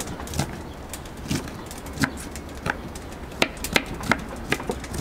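Kitchen knife chopping onion on a wooden cutting board: irregular sharp knocks of the blade on the board, about one every half second, coming quicker in the second half.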